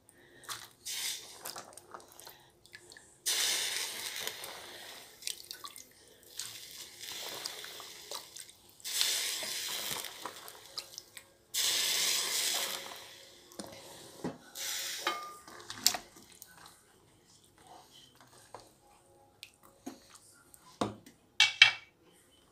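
Soaked white beans and their liquid being poured into a pot of tomato broth, in several splashing pours of a second or two each. A few sharp knocks against the pot near the end.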